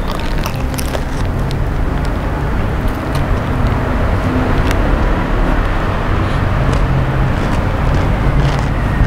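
Steady, loud rumbling background noise, with a few light crinkles of a paper burger wrapper being handled while eating.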